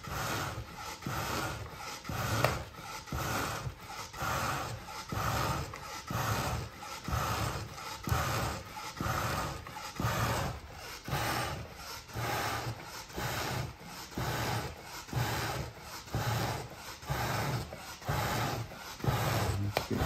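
Hand bellows pumped steadily, about one stroke a second, each stroke blowing a puff of air into the smouldering coals of a wood stove to rekindle the fire.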